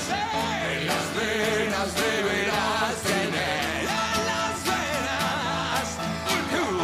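A live band performing a song: male vocals over strummed acoustic guitar and piano, with a steady beat.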